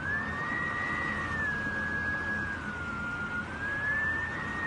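Storm wind whistling in a high, wavering tone that climbs, holds, dips and climbs again, over a steady rushing rumble of wind and rain.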